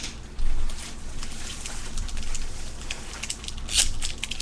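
Trading cards and their packaging being handled: a run of rustling and crinkling with small clicks and scrapes, with a louder rustle about half a second in.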